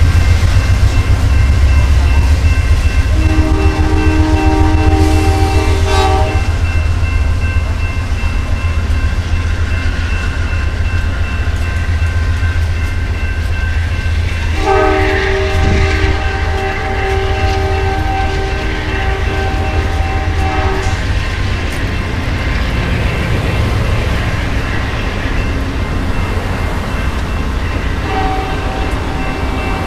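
Amtrak passenger train passing close by: a steady low rumble of the cars rolling over the rails, slowly fading as the Genesis locomotives pull away. The locomotive's multi-chime air horn sounds a long chord about three seconds in, a longer one of about six seconds near the middle, and a third near the end.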